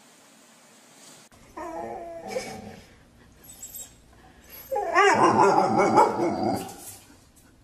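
A dog vocalising in two bouts: a shorter one about a second and a half in, then a louder, longer one about five seconds in, rising and falling in pitch.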